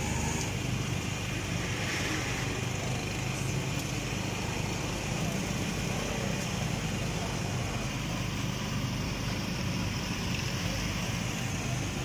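Steady background din of street traffic and a running engine's low hum, with faint voices mixed in.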